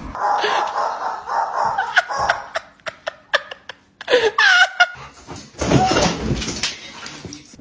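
A person laughing, with sharp clicks in between.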